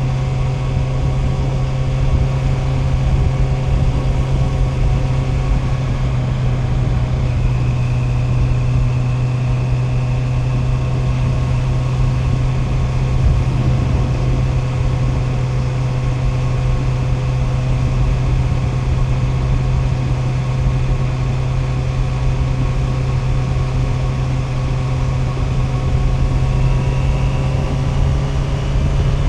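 Honda CB650R's inline-four engine running at a steady pitch, with the engine note rising a little near the end.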